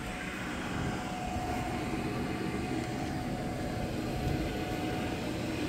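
Electric blower keeping an inflatable bounce house inflated, running steadily with a constant whine over a rushing hum.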